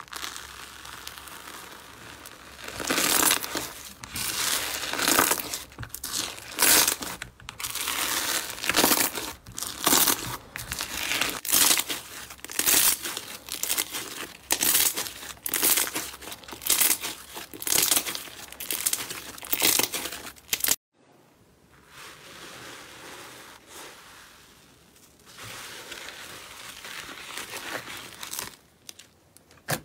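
Bubbly orange slime being squeezed and kneaded by hand in a plastic bowl: noisy squishing strokes, about one a second. It cuts off suddenly about two-thirds of the way through, and softer, quieter squishing follows.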